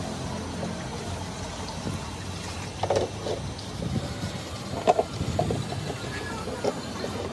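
Knocks and light scrapes of an emptied plastic lead-acid battery case being handled and scrubbed on a concrete ledge, the two loudest knocks about three and five seconds in, over a steady low background rumble.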